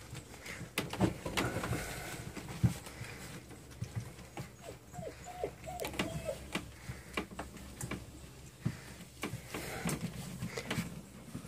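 Four-week-old Siberian husky puppies eating softened puppy chow from a metal bowl: steady wet lapping and chewing with many small clicks, and a few short high whimpers about five seconds in.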